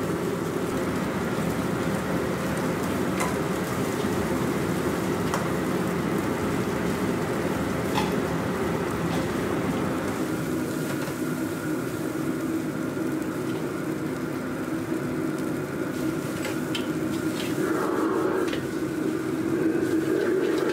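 Fried rice being stir-fried in a wok over a gas wok burner: the burner's steady rush with sizzling under it, and the metal ladle clicking against the wok now and then.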